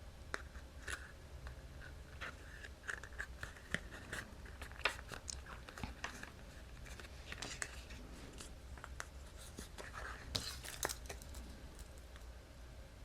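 Paper craft pieces being handled and stuck together with double-sided score tape: soft paper rustling with scattered taps and clicks, and a few short tearing-like sounds.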